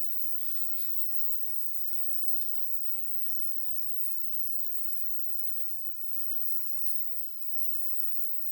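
Faint steady electric hum with a light hiss and a few soft ticks near the start.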